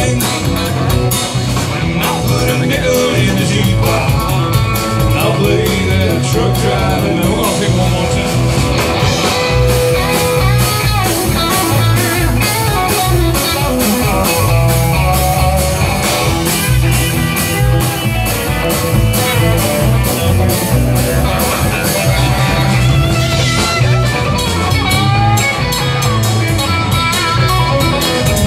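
Live country-rock band playing loud: electric guitars over bass and drums with a steady beat.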